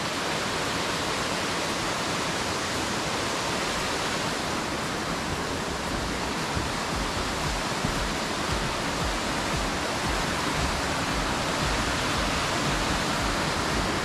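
Mountain valley stream running: a steady, even rush of water.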